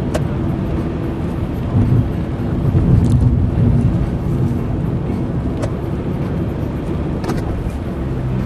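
Car driving on a road, heard from inside the cabin: a steady low rumble of engine and tyre noise, with a few faint ticks.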